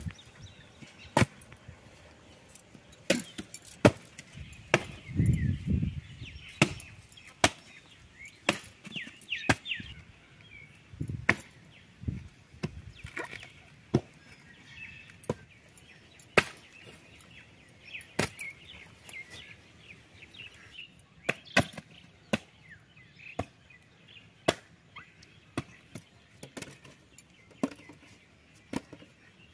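Axe chopping dry, rotten logs: repeated sharp chops at an irregular pace, roughly one every second or two. Small birds chirp faintly between the strokes.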